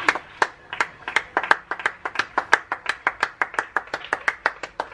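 Hands clapping in a fast, even rhythm, about six or seven claps a second: applause for NHS workers.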